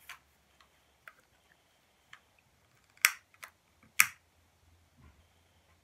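Long-nosed utility lighter clicking as its trigger is pulled to light it: a few faint clicks, then two sharp clicks about a second apart, at about three and four seconds in.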